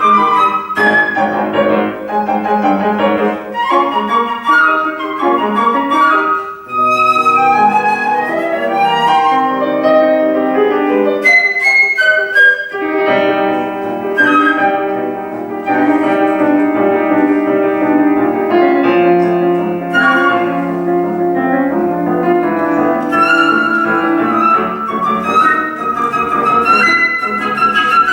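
Concert flute playing a classical competition piece with piano accompaniment, held melody notes mixed with quick runs over struck piano chords.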